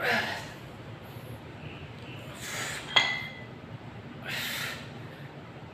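A man breathing out hard three times while doing incline dumbbell flies. About three seconds in, the metal dumbbells clink together once, with a short ring.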